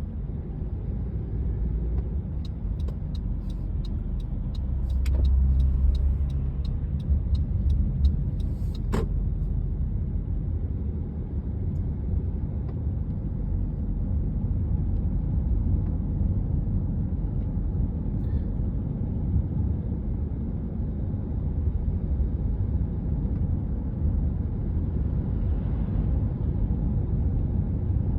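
Honda CR-V being driven, heard from inside the cabin as a steady low engine and road rumble. A few seconds in, a run of sharp clicks lasts for several seconds.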